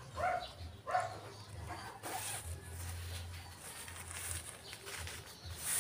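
The zipper of a round nylon pop-up tent carry bag being pulled open, with the fabric rustling, brightest near the end. A chicken clucks twice near the start.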